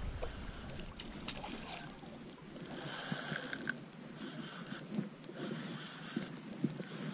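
Fishing reel being cranked: a light mechanical whir with scattered clicks, loudest for under a second about three seconds in.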